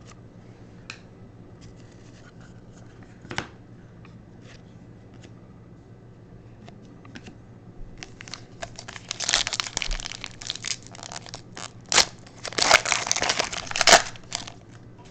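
A trading card pack's foil wrapper being torn open and crinkled, in loud rustling bursts over the second half, after a few faint taps of handling.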